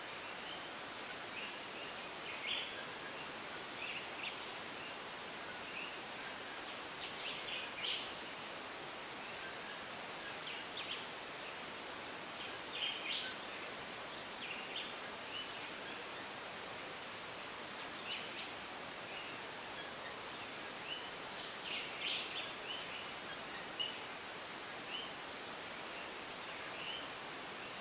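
Tropical rainforest ambience: a steady, even hiss with many short, high chirps and calls from small animals scattered throughout.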